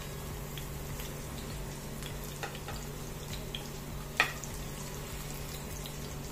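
Spinach fritters shallow-frying in oil in a frying pan: a steady quiet sizzle over a low hum, with a few light utensil clicks and one sharp click about four seconds in.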